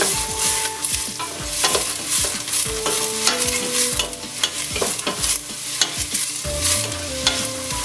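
Diced onions sizzling in melted butter in a stainless steel pot while a wooden spatula stirs them, with repeated scrapes and knocks of the spatula against the pot.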